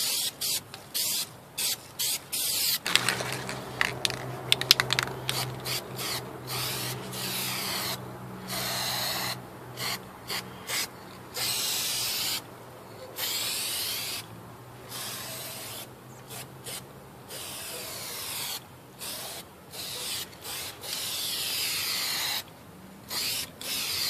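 Aerosol spray can spraying in many short hissing bursts, starting and stopping every second or two as the nozzle is pressed and released. A cluster of sharp clicks comes about three to five seconds in.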